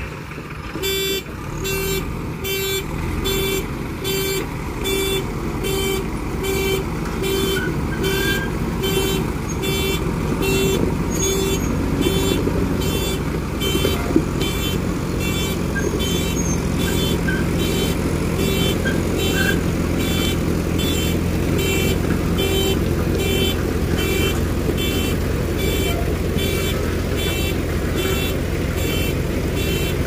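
JCB 3DX Super backhoe loader's reversing alarm beeping evenly, about three beeps every two seconds, starting about a second in. Under it, the backhoe's diesel engine runs steadily under load as it backs up towing an old road roller on a chain.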